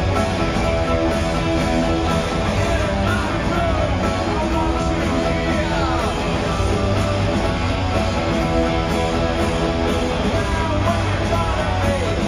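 Live rock band playing loud, electric guitars to the fore, heard from among the audience in a large concert hall.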